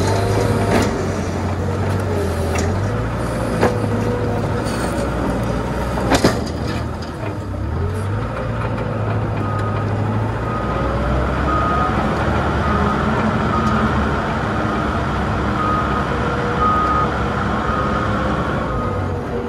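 Tractor engine running steadily and changing pitch as it pushes a V-plow blade through snow, with two sharp knocks a few seconds in. From about halfway, a high reversing-alarm beep repeats roughly once a second.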